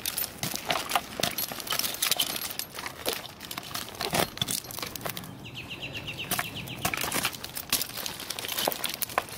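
Tree climber's gear while ascending a pine trunk on climbing spurs: carabiners and metal hardware jangling, with irregular knocks and scrapes of spurs and boots against the bark. About five and a half seconds in, a short run of rapid even ticks lasts about a second.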